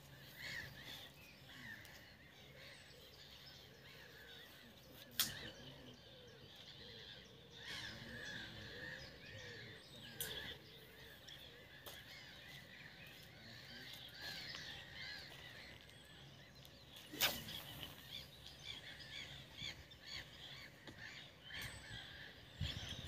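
Birds singing and calling over faint outdoor background noise, with three sharp clicks spaced several seconds apart.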